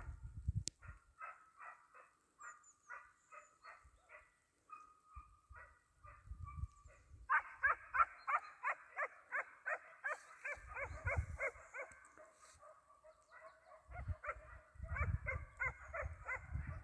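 Hare hounds baying on a hare's trail, a steady run of barks at about three to four a second. It swells louder for a few seconds midway, eases off, then picks up again near the end.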